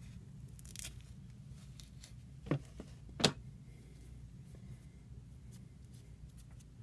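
Quiet handling noises at a fly-tying vise: two brief sharp clicks, about two and a half seconds in and again less than a second later, over a low steady hum.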